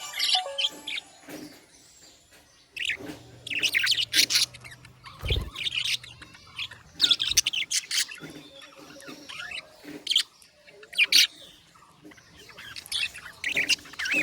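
Budgerigars chirping in short, irregular bursts of high chirps with quiet gaps between them.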